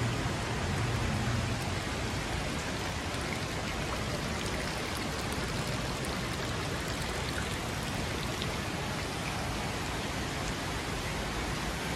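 Steady, even rush of running water from a shallow indoor stream, with a low hum that fades out in the first couple of seconds.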